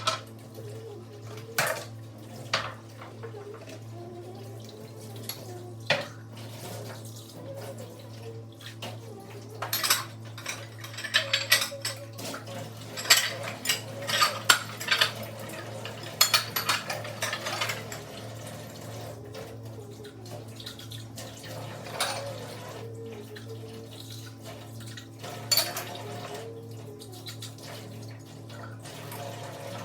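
Dishes and cutlery clinking and knocking together in a kitchen sink under a running tap, during hand dishwashing. The clinks come thickest in a burst through the middle, with single knocks before and after.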